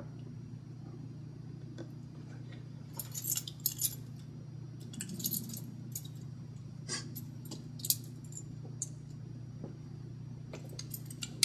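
Keys jingling and clinking in a man's hands in several short spells, over a steady low hum of room tone.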